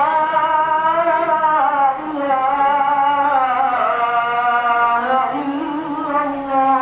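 A single voice chanting long, drawn-out melodic phrases, with short breaks about two seconds in and again about five seconds in.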